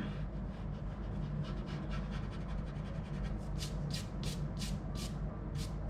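Pencil eraser rubbing back and forth on paper: faint quick strokes at first, then firmer strokes about three a second from a little past halfway, over a steady low hum.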